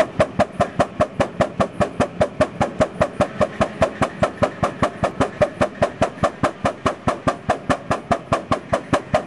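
Sawmill engine running with a fast, even beat of about five sharp strokes a second.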